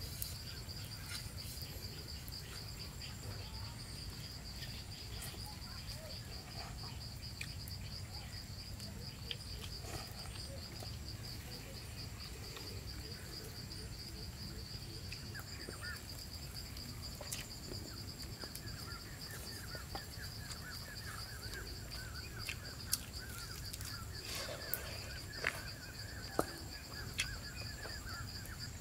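Crickets chirring in a steady, high, pulsing trill. A second, lower insect trill joins about two-thirds of the way through, and a few sharp clicks come near the end.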